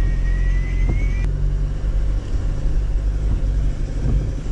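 Car heard from inside the cabin while climbing a steep hill: a steady low rumble of engine and road noise. A thin high whine rises slightly over the first second and then cuts off.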